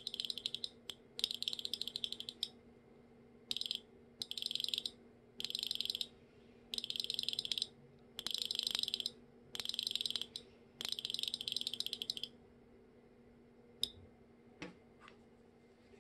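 Small signal relays on a passive relay volume attenuator clicking in rapid bursts as the volume is stepped with a rotary encoder: about ten bursts of dense clicking over the first twelve seconds, then a few single clicks near the end.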